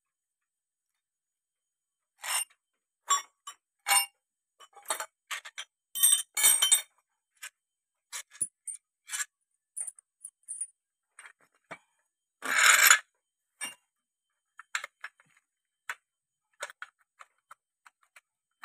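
Scattered metallic clinks and clanks of spanners and a homemade bolt-type puller being unbolted and taken off a tractor clutch pressure-plate assembly, with one longer, louder clatter about twelve seconds in.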